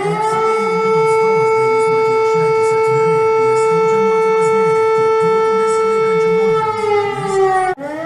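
Civil defence warning siren winding up to one steady pitch, holding it for about seven seconds, then winding down near the end before starting to rise again. A public emergency warning signal.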